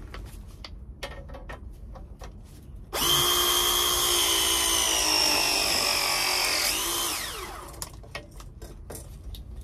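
Milwaukee M12 battery press tool running a press cycle on a copper press-fitting elbow. The motor starts suddenly about three seconds in, its whine sinking slowly in pitch as the jaws close on the fitting under load, then a short glide up and down before it stops about seven and a half seconds in. Light handling clicks before and after.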